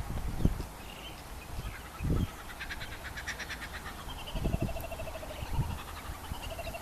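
Birds calling: a fast rattling chatter a few seconds in, then repeated nasal, pulsing calls. A few dull low thumps are mixed in, the loudest near the start and about two seconds in.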